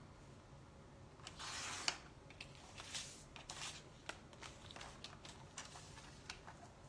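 Sliding paper trimmer cutting through a sheet of shipping-label stickers: a short rasp of the blade about a second in, ending in a click. Then paper rustling and light clicks as the cut strip is lifted off and the sheet is lined up on the trimmer again.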